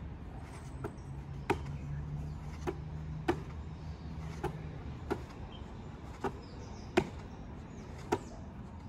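A ball slapping into hands again and again as two people pass it quickly back and forth at close range: a string of sharp smacks, about one every half second to second.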